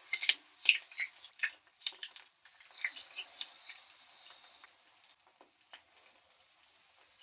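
Besan-battered cabbage rolls frying in hot oil in a frying pan, the batter crackling and popping as it meets the oil. The popping is densest in the first few seconds, then thins out, with one sharp pop later on.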